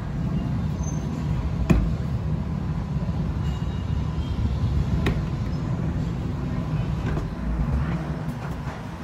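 Steady low engine rumble, with a sharp click about two seconds in and another about five seconds in.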